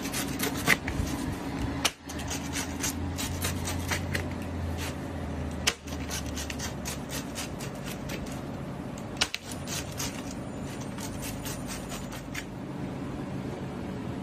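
A pizza wheel cutter crunching and scraping through the crisp crust of a pepperoni pizza on a metal pan, many short crackles in quick runs. A steady low hum lies beneath.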